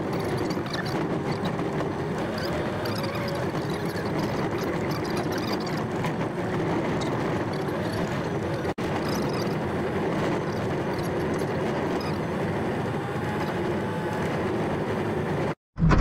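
Steady engine and road noise inside the cab of a 4x4 tow truck driving along a dirt forest road.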